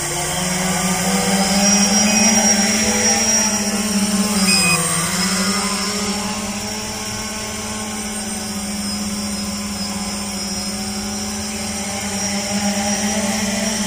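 Tricopter's three electric motors and propellers droning as it lifts off and hovers. The pitch rises as the motors spin up just after the start, dips briefly about five seconds in, then holds steady.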